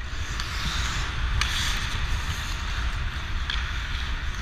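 Ice hockey skates scraping and carving on the ice, with wind rushing over a helmet-mounted camera's microphone as the skater moves. There are two sharp knocks, one about a second and a half in and one about three and a half seconds in.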